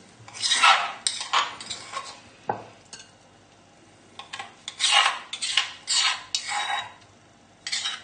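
A utensil scraping thick mustard marinade out of a mortar into a bowl, in a run of short rasping strokes, a pause of about two seconds, then a second run of strokes.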